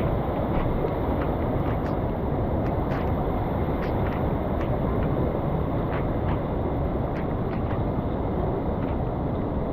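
Swollen, rain-fed river rushing over rocks in a steady, loud wash of water noise, with small splashes ticking through it.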